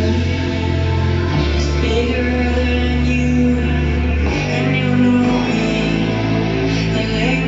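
A pop song with singing, bass and guitar played loud through a 15-inch party speaker system driven by a mixer, with deep sustained bass notes that change every second or so.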